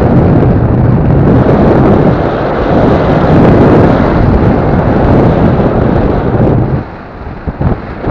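Wind rushing over the microphone of a paraglider in flight, a loud low rumbling buffet that drops away for about a second near the end before picking up again.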